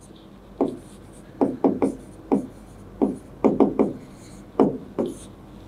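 Pen strokes and taps on an interactive whiteboard's screen while a word is written by hand: a dozen or so short, irregularly spaced strokes.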